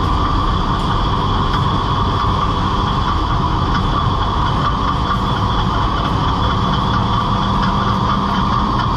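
Old boat's inboard engine running steadily on its first run after sitting abandoned for seven years, with a thin, steady high-pitched squeal that the owner guesses is a belt chirp or metal on metal.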